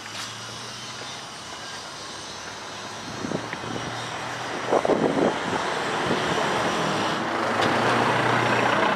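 A passing engine: a steady low hum under a rushing noise that grows steadily louder throughout.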